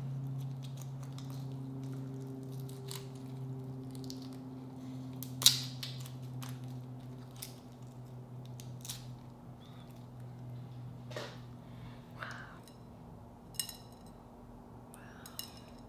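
A cooked shrimp's shell being peeled off by hand: scattered small crackles and clicks, with one sharper snap about five and a half seconds in, over a low steady hum.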